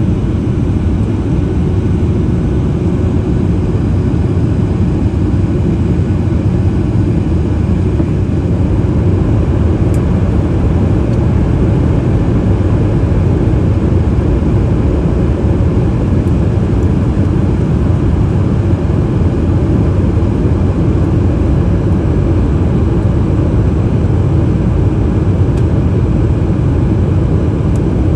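Steady low rumble of cabin noise inside a Boeing 737 MAX 8 airliner on approach: its CFM LEAP-1B engines and the air rushing over the fuselage, heard through the cabin wall.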